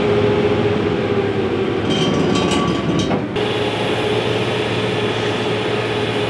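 An engine running steadily, with a short stretch of clattering about two seconds in.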